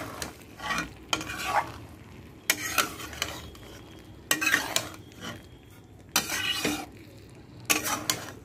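A spatula stirring and scraping ridge gourd and potato in poppy-seed paste around a metal kadai: a string of short scrapes, roughly one every second, with a soft sizzle between them.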